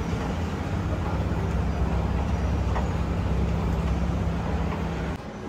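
Steady low mechanical hum of a moving escalator's drive machinery, with a constant low drone and no change in pitch. It cuts off abruptly near the end.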